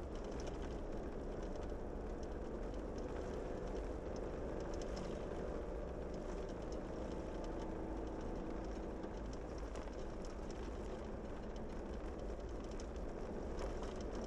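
A Jeep's engine running steadily as it drives up a steep unpaved mountain road, with a low drone and the rumble of tyres on the dirt surface.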